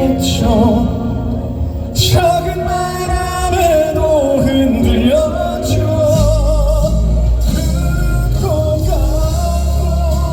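Live trot song over a PA: a male singer holding notes with wide vibrato over band accompaniment with a heavy bass.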